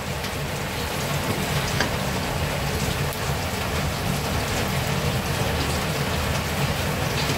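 Chopped garlic sizzling steadily in hot oil in a non-stick pan, stirred with a metal spatula that now and then taps the pan.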